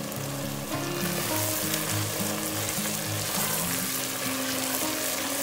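Tomato stew base (tomato paste and blended tomatoes in oil) sizzling as it fries down in an enamelled cast-iron pot, stirred with a wooden spoon; the sizzle gets louder about a second in. Background music with steady low notes runs underneath.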